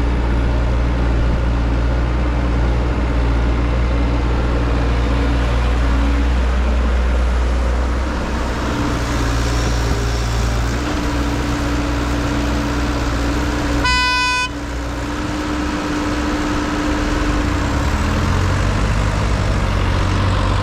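Heavy vehicle's engine running steadily with a deep hum. About fourteen seconds in, a horn gives one short toot.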